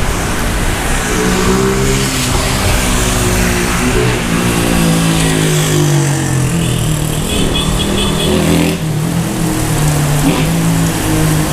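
Motor vehicle engines running and shifting in pitch as traffic passes, over the steady hiss of heavy rain.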